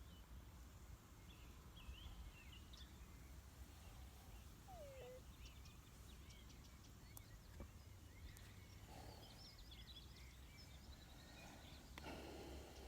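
Faint outdoor quiet with a horse lying down snoring: a soft rasping breath about nine seconds in and again near the end, with scattered distant bird chirps and a low wind rumble underneath.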